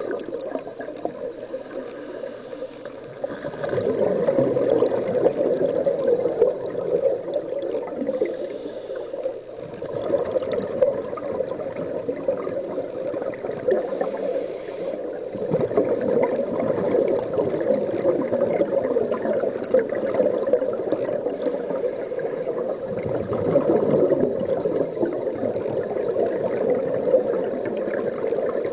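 Scuba regulator exhaust bubbles heard underwater: a steady rush of bubbling that swells with each exhalation, about every six or seven seconds.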